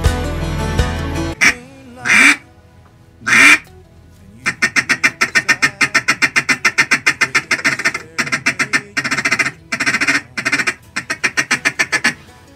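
A country song ends about a second in. Then come loud mallard-style quacks from a duck call: two long drawn-out quacks, then fast runs of short quacks at about five a second, with a couple of short breaks.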